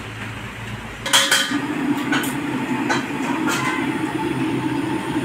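Metal kitchenware clinking against a large aluminium cooking pot: a sharp cluster of clinks about a second in, then a few single clinks about a second apart, over a steady rushing noise that starts with the first clinks.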